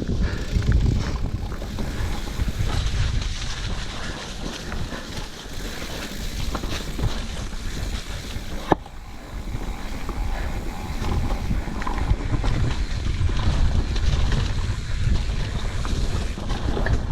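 Wind buffeting the microphone of a camera carried on a mountain bike at speed down a dirt trail, with a low rumble that swells and fades and the rattle of the bike over the ground. One sharp knock about 9 s in.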